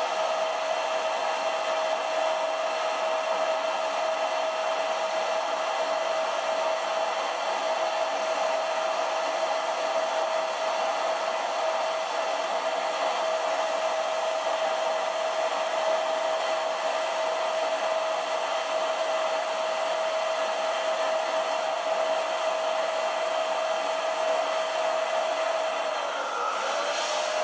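Electric air pump running steadily, blowing air into a large clear vinyl beach ball, with a constant hum over its whoosh. The hum sags in pitch near the end.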